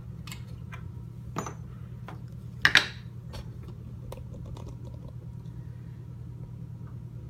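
Scattered light clicks and clacks of a padlock and lock-picking tools being handled, the loudest a quick double clack nearly three seconds in, over a steady low hum.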